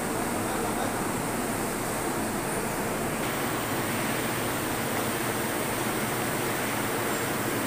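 Steady factory background noise, an even rushing hiss with no distinct knocks or voices.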